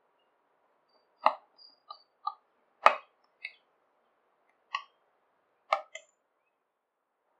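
Steel spoon clinking against a glass bowl while stirring a thick condensed-milk and nut mixture: about eight irregular clinks, the loudest about three seconds in.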